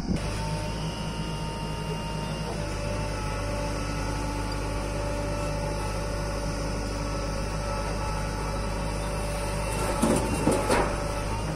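JCB 3DX backhoe loader's diesel engine running steadily while the backhoe digs. About ten seconds in there is a short clattering rush as a bucketful of soil is dumped into the steel bed of a tipper truck.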